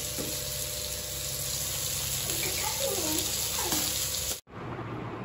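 Fish shallow-frying in oil in a pan: a steady sizzle that cuts off abruptly about four and a half seconds in, giving way to a duller steady background noise.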